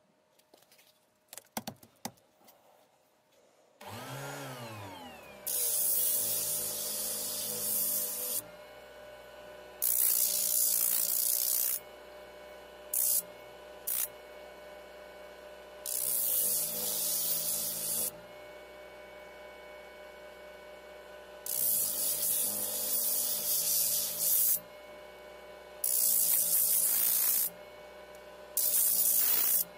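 Small electric disc sander with a 120-grit sanding disc: a few light clicks as the disc is fitted, then the motor spins up about four seconds in and runs with a steady hum. Over and over, the steel blade of a damascus chef knife is pressed to the spinning disc, each contact a loud hiss of abrasive grit on steel lasting one to three seconds, polishing the rough reground area near the rebuilt tip.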